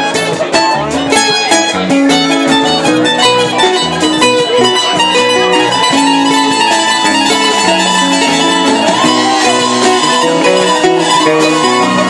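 Live band playing loudly: guitar with a drum kit.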